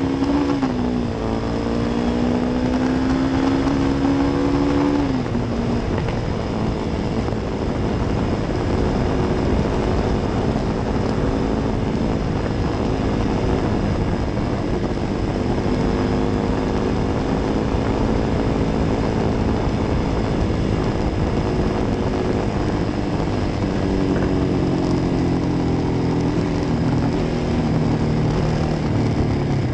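Kawasaki D-Tracker's single-cylinder four-stroke engine pulling away, with its pitch rising and dropping twice in the first five seconds as it shifts up, then cruising steadily, and slowing with falling revs near the end. A steady rush of wind noise sits under the engine.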